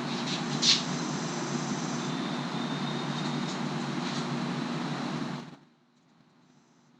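Steady background hiss with a low hum, with a few light clicks of a shifter cable being fed through a handlebar lever. The noise cuts off suddenly about five and a half seconds in, leaving near silence.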